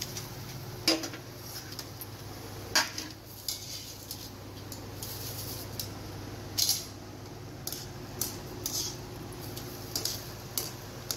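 Golgappa puris frying in hot oil in a steel wok: the oil sizzles in repeated bursts while a wire-mesh skimmer clinks and scrapes against the pan, loudest twice in the first three seconds. A steady low hum runs underneath.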